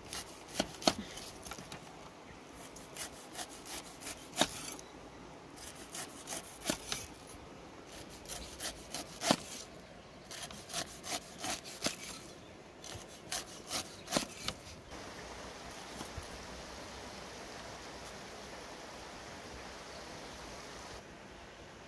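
A cleaver slicing the rind off a pineapple in irregular bursts of rasping strokes, with sharper knocks against a wooden chopping board. About two-thirds of the way through the strokes stop, leaving only a steady hiss.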